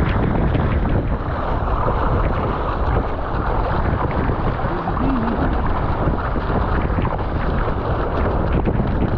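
Wind buffeting the microphone over the steady rush and splash of water along an Epic V7 surfski's hull as it runs with a wave, with the paddle blades dipping into the water.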